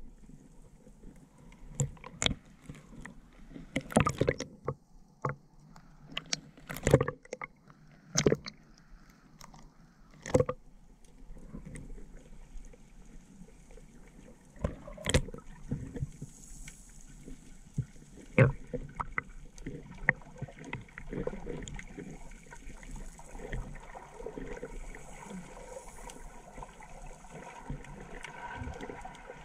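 Underwater sound picked up by a submerged action camera while snorkelling: irregular sharp knocks and gurgles of water against the camera, over a low rushing hiss. From about twenty seconds in, a steadier rushing sound fills in.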